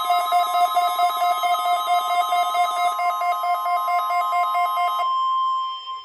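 Midland NOAA weather alert radios sounding their alarm for a required weekly test: a fast warbling electronic beep over the steady 1050 Hz weather radio warning tone. The warbling stops about five seconds in, and the steady tone carries on alone.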